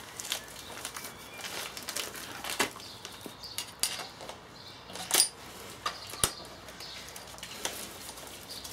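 Circlip pliers clicking and scraping against the steel circlip and drive flange of a VW 1303S gearbox as the clip is worked off: a string of irregular light metallic clicks, with one sharper click a little past the middle.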